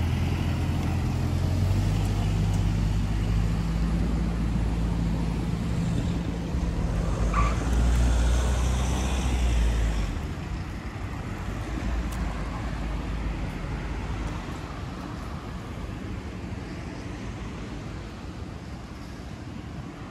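A motor vehicle's engine running close by, a steady low hum that is loudest for about the first ten seconds and then fades into general road-traffic noise. There is a brief squeak about seven seconds in.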